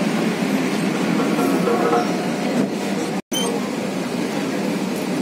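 Steady noise inside a Kochi Metro train carriage at a station, with some faint passenger voices. The audio drops out completely for an instant about three seconds in.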